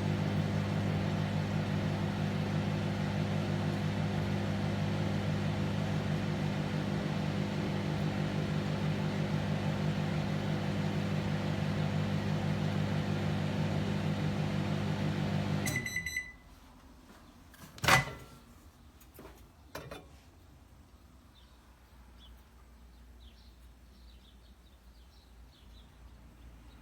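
SEVERIN MW 7773 grill-and-convection microwave oven running with a steady low hum that cuts off suddenly about two thirds of the way in, with a short high beep as it stops. A loud click follows a couple of seconds later, then a softer knock.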